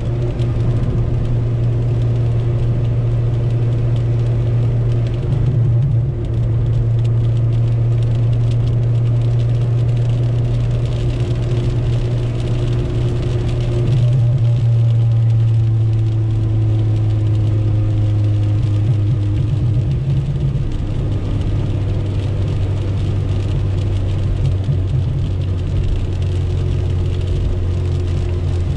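Inside the cabin of a 1997 Chevrolet Corsa Wind cruising on a highway: the four-cylinder engine's steady drone, with tyre noise and the hiss of heavy rain and spray on the car. The engine note sinks a little about halfway through.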